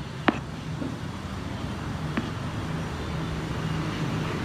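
A kitchen knife tapping on a cutting board while mincing: one sharp tap about a third of a second in and a fainter one about two seconds in, over a steady low rumble of background traffic.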